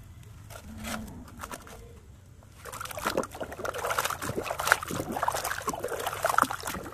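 Water sloshing and splashing in a plastic tub as a hand swishes a toy through foamy water. The splashing starts about two and a half seconds in, after a quieter stretch, and goes on in quick, uneven splashes.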